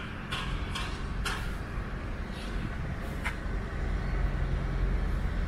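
Construction-site noise: a steady low rumble of machinery with a few irregular sharp knocks or clanks.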